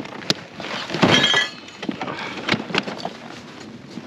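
Hard gear being handled and unpacked: a series of knocks and clatters, with a cluster of bright, ringing clinks about a second in.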